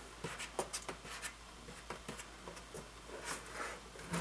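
Scissors picking and snipping at the packaging on a cardboard game box: scattered quiet clicks and scratchy rubs, with a short scraping hiss a little past three seconds in.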